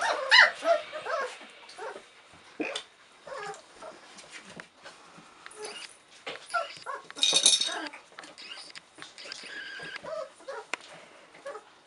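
Czechoslovakian wolfdog puppies, about four weeks old, whimpering and yipping in a string of short high squeals, loudest in the first second. A short scratchy rattle comes about seven seconds in.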